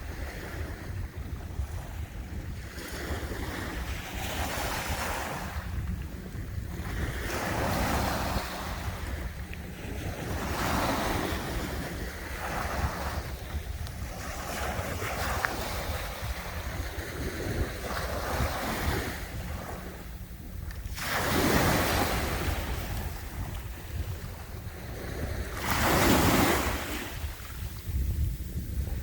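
Sea waves breaking and washing up the shore, each surge swelling and fading every few seconds, with two bigger breakers near the end. A steady low rumble of wind buffets the microphone throughout.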